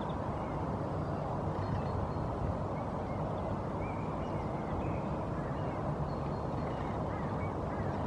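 Steady low outdoor rumble with faint, short bird calls scattered through it.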